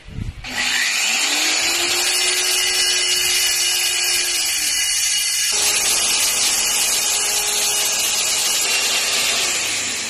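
Handheld electric core drill with a long core bit boring a hole through a masonry wall, the hole for an air conditioner's pipes. It starts about half a second in and runs loud and steady under load, with a constant motor hum beneath the grinding of the bit.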